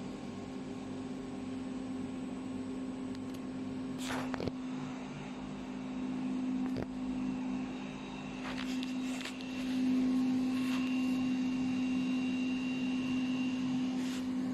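Fiber laser cutting machine running with a steady low hum. A few short rushing noises come and go, and a faint high whine joins partway through.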